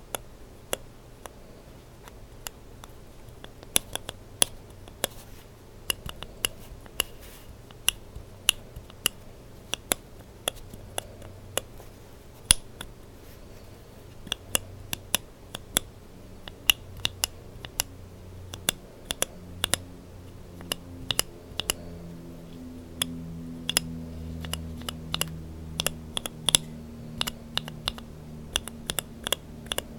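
Linear mechanical keyboard switches with Kailh burgundy stems, one in a BSUN Brown housing with a Yok top and one in a GSUS housing, pressed and released over and over, giving sharp plastic clacks as they bottom out and top out, roughly one or two a second. A faint low hum sits underneath.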